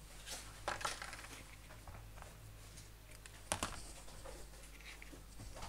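A few faint clicks and taps, the sharpest about three and a half seconds in, over a low steady hum.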